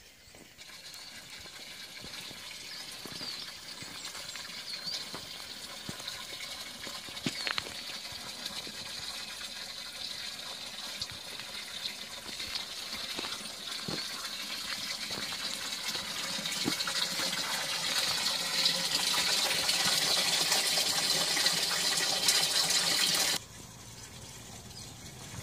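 Water running and splashing at a stone-built mountain spring, getting steadily louder, with a few light knocks along the way; the sound cuts off abruptly near the end.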